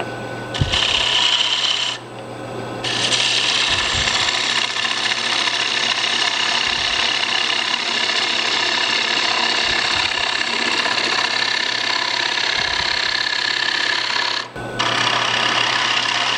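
A small gouge cutting into wood spinning on a lathe, deepening the grooves of a turned dish: a steady rough hiss of shavings being sheared, over the low hum of the lathe. The cut lets up briefly about two seconds in and again near the end, then carries on.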